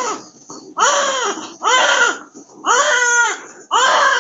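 A newborn baby crying just after birth, loud wails about one a second, each rising and falling in pitch, with short breaths between.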